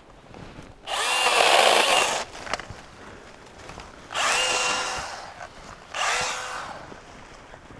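Makita MUC101D 18V cordless handy chainsaw running in three short bursts, each with a motor whine that climbs as the trigger is pulled, as it cuts into thin overhead branches. The first burst lasts over a second and is the loudest. The next two are shorter.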